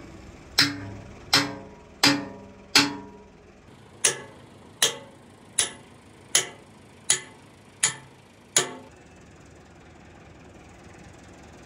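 Hand hammer striking the steel bucket linkage of an excavator arm, each blow leaving a short metallic ring. There are four evenly spaced blows, a pause of about a second, then seven more about three-quarters of a second apart, after which it stops.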